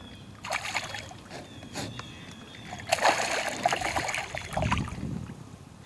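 Water splashing and sloshing in irregular bursts beside a small boat, once about half a second in and again, longer and louder, from about three to five seconds.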